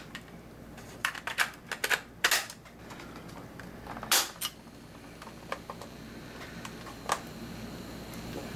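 A Maxell cassette being loaded into a 1966 Mercury TR 8000 (Philips EL-3301) cassette recorder: a string of sharp plastic clicks and clatter from the cassette seating, the lid and the piano-key controls. The loudest clicks come a little over two seconds in and again around four seconds in.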